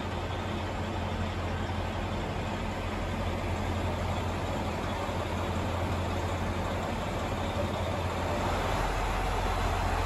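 Diesel railcar engine idling: a steady low hum under an even hiss, a little louder near the end.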